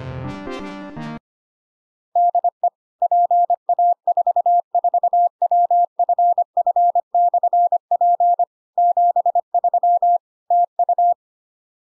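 Piano-like background music ends about a second in. After a short pause, a clean single mid-pitched tone is keyed on and off in Morse code (CW), short and long elements for about nine seconds.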